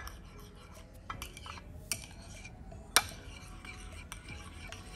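Small metal spoon stirring a thick rice-porridge paste in a ceramic bowl, scraping and clinking against the sides, with a sharper clink about three seconds in.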